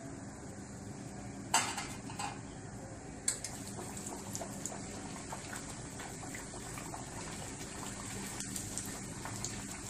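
Metal clatter of a wire-mesh skimmer against a kadhai, then hot oil sizzling and crackling as a methi poori deep-fries. The sizzling starts about three seconds in, when the dough goes into the oil.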